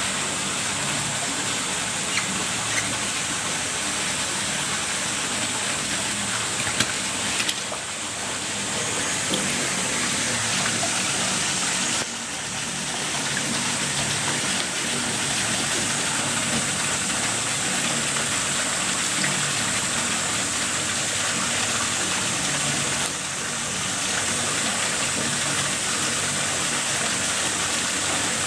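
Steady rush of running water in a zoo otter pool, with a few small sharp clicks in the first several seconds.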